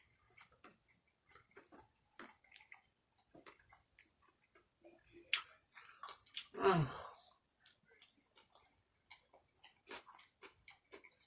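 Close-up mouth sounds of a person eating: chewing with many small wet clicks and smacks, and a sharper click about five seconds in. A short vocal sound falling in pitch, like an appreciative "mm", comes a little later.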